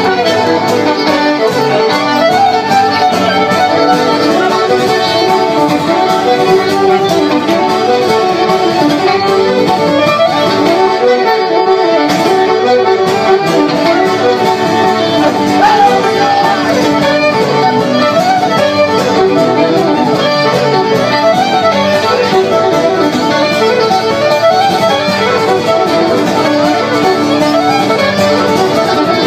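Live fiddle playing a traditional tune, with accordion and strummed acoustic guitar backing, the fiddle leading throughout.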